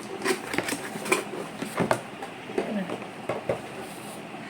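An oven-safe serving bowl being taken out and handled: an irregular string of light knocks and clicks.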